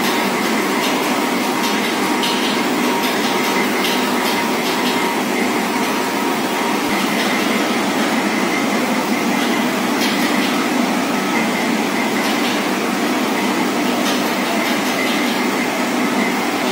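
Steady running noise of a train, an even rail sound that does not rise or fall.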